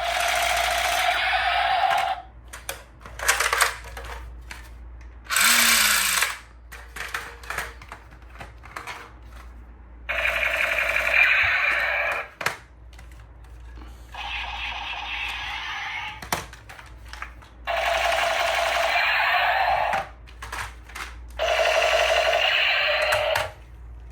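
Electronic toy gun firing its sound effect through a small speaker: a series of buzzing, rattling bursts, most about two seconds long, with short clicks between them.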